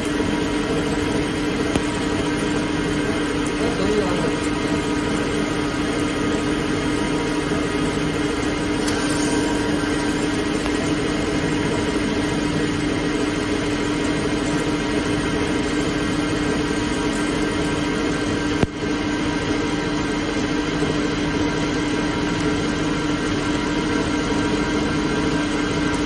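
ALCK6163X1500 CNC lathe running steadily during a machining test: a steady hum with several held tones. A short hiss comes about nine seconds in.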